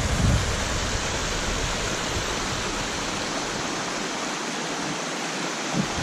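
A small stream splashing down over rocks in a steep gully: a steady rush of running water.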